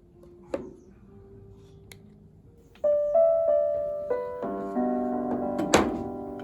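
Piano music that comes in about three seconds in and builds into sustained chords, after a quiet stretch holding a faint held note and a couple of soft clicks. A sharp click sounds over the chords near the end.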